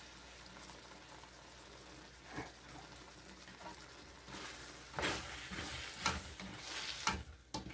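Faint sizzling of onions frying in a wok as cream is squeezed in over them, then from about five seconds in a few short scrapes and knocks of a spatula stirring in the wok.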